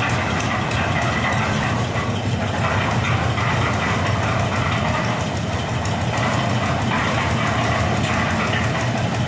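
Concrete mixer machine's engine running steadily.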